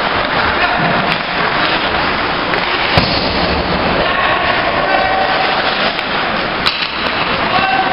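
Ice hockey play: a steady noisy wash of skates on ice and rink ambience, broken by sharp cracks of stick on puck, one about three seconds in and another near the end.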